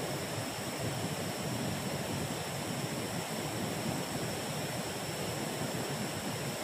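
River water flowing steadily over rocks.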